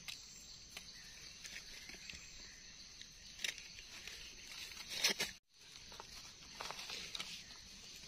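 Faint steady high-pitched insect drone, with scattered rustles and clicks of hands moving through dry leaf litter while picking mushrooms. The sound cuts out completely for a moment about five and a half seconds in.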